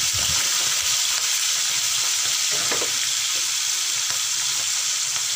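Freshly added chopped shallots, bird's-eye chilies, garlic and tomato sizzling steadily in hot oil in a wok.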